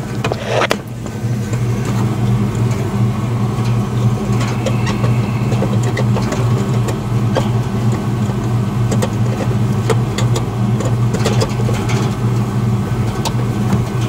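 Steady electrical hum of a running air-conditioning condenser unit, a low drone with overtones above it. A few sharp clicks and knocks of handling come in the first second, with light ticks scattered after.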